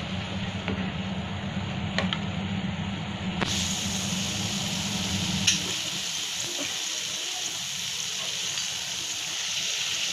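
Pea-pod bhaji in gram-flour batter deep-frying in hot oil over a low flame: a steady sizzle. A slotted steel spoon turns them, with a few sharp clicks against the pan, the loudest about five seconds in.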